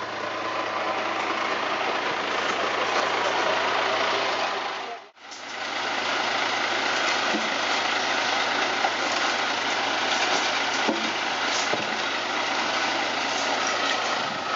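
Heavy machinery diesel engine running steadily, from the backhoe being unloaded or its truck. The sound drops out for a moment about five seconds in, then resumes.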